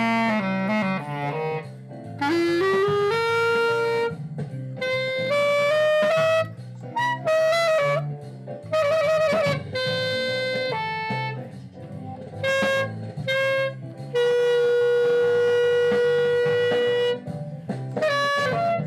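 Glory GLY-PBK B-flat clarinet with a Belmonte hard-rubber mouthpiece played in short melodic phrases, with a rising scoop about two seconds in and one long held note near the end.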